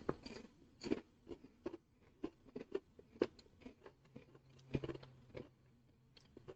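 Faint crunching of crunchy potato chips being chewed: irregular crisp crunches, a dozen or so spread over several seconds.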